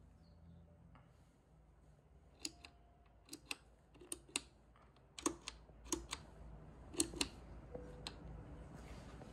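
Metal push-button switches on a bedside control panel clicking as they are pressed and released: about a dozen sharp clicks, mostly in quick pairs, starting a couple of seconds in.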